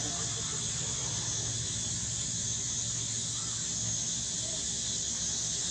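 Steady high-pitched drone of an insect chorus. A couple of faint, short squeaks from a baby monkey come in the middle.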